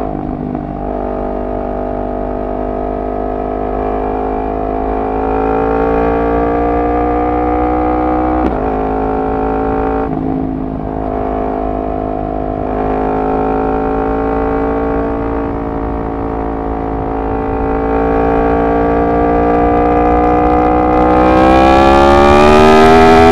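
Yamaha MT-10's crossplane inline-four running through a decat exhaust, revs rising slowly in gear. The note breaks briefly three times, at about 8, 10 and 13 seconds in. Near the end it climbs harder and gets louder.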